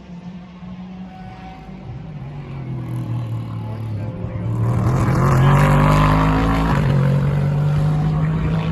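Race car engine growing louder as the car approaches, passing close by about five to six seconds in with a burst of engine and tyre noise, its note falling in pitch as it goes by; engine sound stays loud and steady afterwards.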